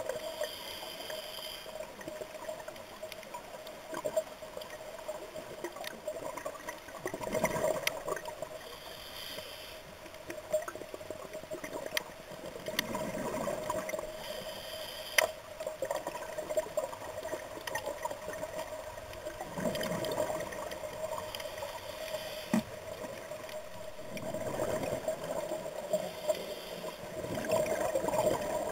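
Scuba diver breathing through a regulator underwater: a hiss on each inhalation and a gurgling rush of exhaled bubbles, repeating about every five to six seconds over a steady hum, with a couple of sharp clicks.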